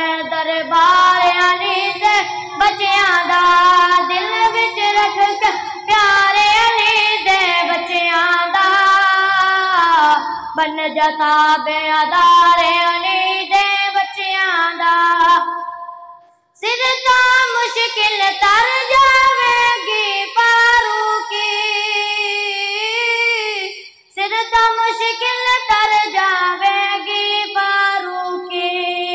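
A boy singing a Punjabi naat solo into a microphone, unaccompanied, in long held, wavering phrases. He breaks off for a breath about sixteen seconds in and again briefly about twenty-four seconds in.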